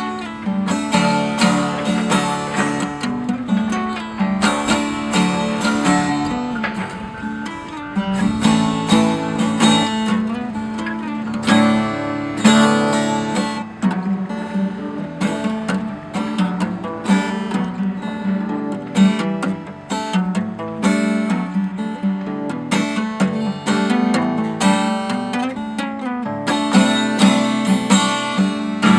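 Solo acoustic guitar played fingerstyle, with plucked notes mixed with strummed chords.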